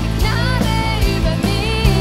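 Live band playing a rock-style worship song: electric guitars, bass and drums with voices singing over them, a steady beat of drum hits throughout.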